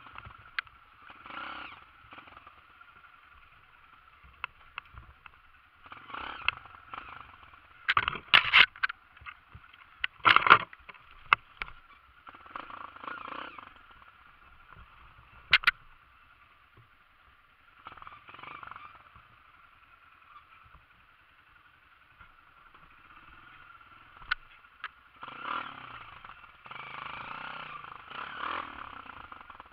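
Honda CRF dirt bike running at low speed on a rough rocky descent, its engine swelling now and then with bursts of throttle. Several sharp knocks and clatters come as the bike drops over rocks, the loudest a cluster about eight seconds in, another about ten seconds in and a single one near the middle.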